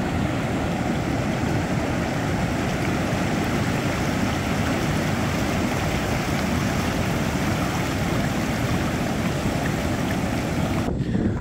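Steady rush of ocean surf breaking, with wind buffeting the microphone.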